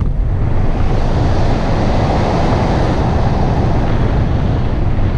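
Wind rushing over the microphone of a camera mounted on a hang glider's control frame in flight just after launch: a loud, steady rush of air.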